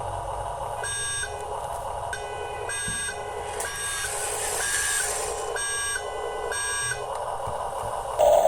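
A remote-control construction model's electronic beeper sounds seven short, even beeps, about one a second, over the steady whine of its electric motor and gears. Near the end a louder motor whine comes in.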